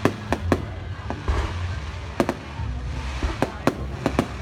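Aerial fireworks bursting overhead: about ten sharp bangs at uneven intervals, some in quick pairs, over a steady low rumble.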